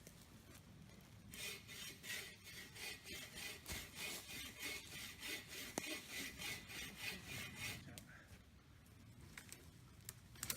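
Hand saw cutting through a tree trunk with steady back-and-forth strokes, about two to three a second. It starts about a second in and stops near eight seconds.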